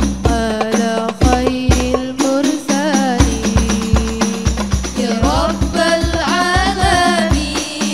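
Hadrah sholawat music: female voices singing a melody over hand-played rebana frame drums and a deep bass drum keeping a steady, interlocking rhythm.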